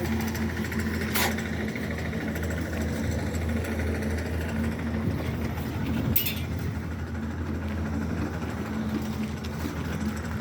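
Engine of construction machinery running steadily with a low hum, with two sharp knocks, one about a second in and one about six seconds in.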